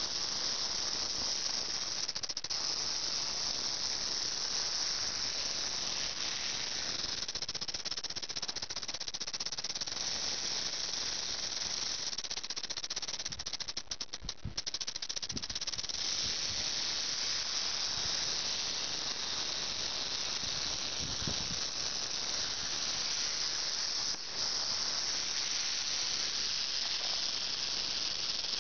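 Rattlesnake coiled in a defensive posture, rattling its raised tail in a steady, continuous high buzz: the warning of an alarmed snake. The buzz falters briefly about halfway through.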